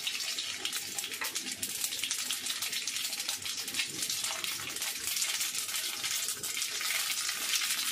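Mustard seeds frying in hot oil for a tempering (tadka), sizzling with a dense run of small crackles and pops over a steady hiss.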